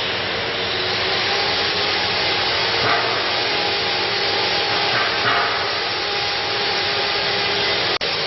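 Bottom-seal plastic bag making machine running steadily, a dense mechanical hiss with a faint steady hum, and a couple of brief swishes about three and five seconds in. The sound drops out for an instant near the end.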